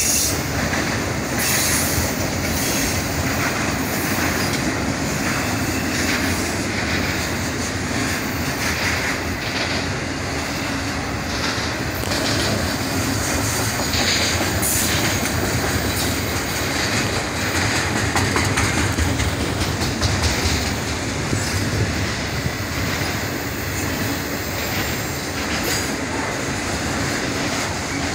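Autorack freight cars rolling past on steel rails: a steady rumble of wheels with repeated clacking over the rail joints, and now and then a brief high wheel squeal.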